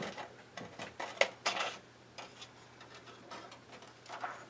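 Scissors snipping a thin plastic acetate sheet: a few sharp, irregular clicks and crackles, the loudest about a second in.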